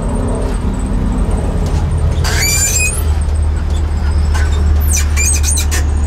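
Ice cream truck's engine running with a low steady drone that grows louder about halfway through. A high squeal comes about two seconds in, and a quick run of short high squeaks near the end.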